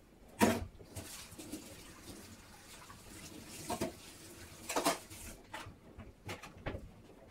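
Kitchen clatter: a series of sharp knocks and clinks of things being handled at the sink and counter, the loudest about half a second in and a quick run of them near the end, with a faint hiss between.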